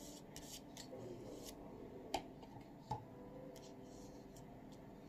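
Faint handling sounds of a plastic liquid-glue bottle and folded paper on a hard tabletop: light scattered clicks and rustles as glue is readied for the paper boat's side, with two slightly louder knocks about two and three seconds in.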